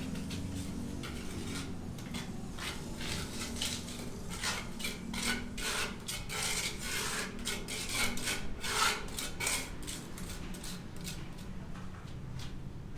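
Repeated, irregular scraping or rubbing strokes, like a tool worked across a hard surface, over a steady low hum. The strokes come thickest from about four to nine seconds in.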